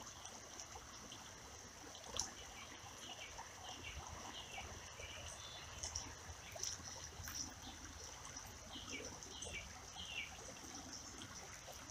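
Shallow creek water trickling and running over a riffle, faint, with a few small ticks and some faint short high chirps.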